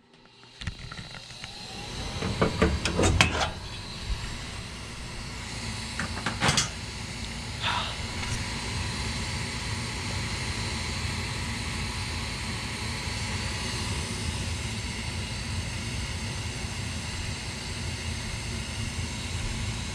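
Ducane gas furnace's fan motor spinning up over about two seconds and then running with a steady whooshing hiss, as the furnace is called on to start. A few knocks and clicks come in the first eight seconds.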